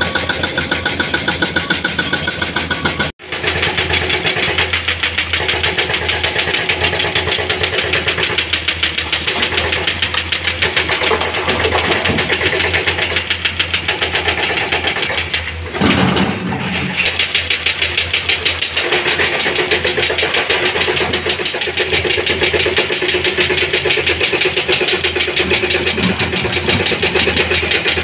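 Diesel engines of a Komatsu hydraulic excavator and a dump truck running with a steady rhythmic throb. The sound drops out for an instant about three seconds in, and a louder, deeper rumble comes a little past halfway.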